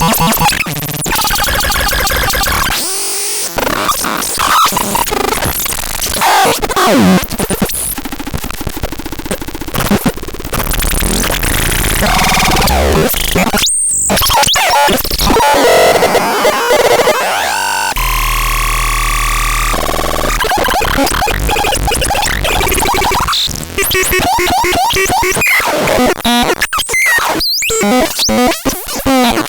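Synthesizer playing harsh, chaotic noise: glitchy squeals, sweeps and rapid jumps in pitch with abrupt cuts. About two-thirds of the way in, a steady low buzzing drone sounds under a falling whistle for a couple of seconds.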